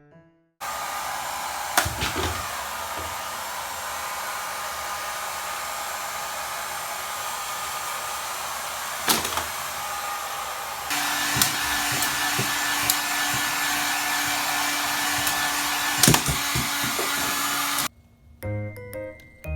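Hand-held hair dryer running steadily. It switches on about half a second in, jumps to a louder, higher setting about halfway through, and cuts off near the end. A few sharp knocks come while it runs.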